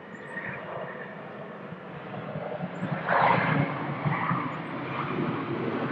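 Jet airliner's engines on its landing rollout, a rushing roar that swells to its loudest about three seconds in.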